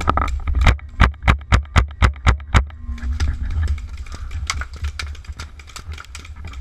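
Paintball markers firing rapid, evenly spaced shots, about four a second, thinning to scattered shots after about two and a half seconds, with low rumbling handling and wind noise on the body-worn camera.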